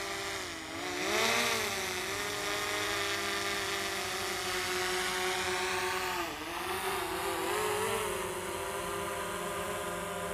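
DJI Mavic Pro Platinum quadcopter's propellers whining as it comes down to land. The pitch dips and climbs back twice, about a second in and again about six seconds in, as the motors change speed.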